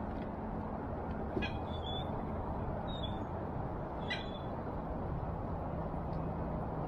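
Steady wind noise on the microphone, with about four short bird calls about one and a half, two, three and four seconds in.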